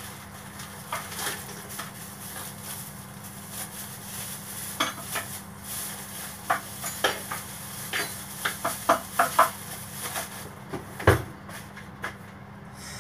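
Kitchen dishes and utensils clinking and knocking in irregular sharp taps, thickest between about five and ten seconds in, with one louder knock about eleven seconds in, over a steady low hum.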